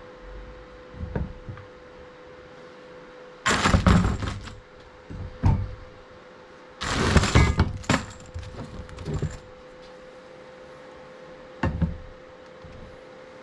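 Loose metal hardware and parts being handled, clattering and clinking in several short bursts, the two biggest a few seconds in, over a steady faint hum.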